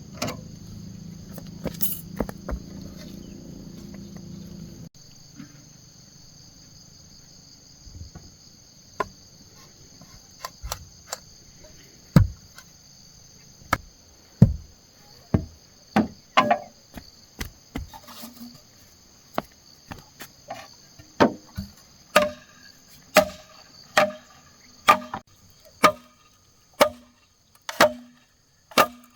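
Repeated strikes on bamboo, scattered at first and then roughly one a second, each with a short hollow ring. A steady high chirring of crickets runs underneath, and a low hum stops about five seconds in.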